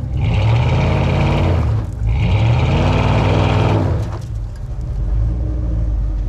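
Willys Jeep engine revving hard in two surges under load on a dirt hill climb, then easing back to a lower, steady idle about four seconds in.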